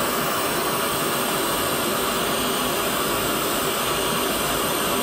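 Pink noise test signal played steadily through a loudspeaker, heard as a constant even hiss. It is the generator signal used to measure the delay from the speaker to the measurement microphone.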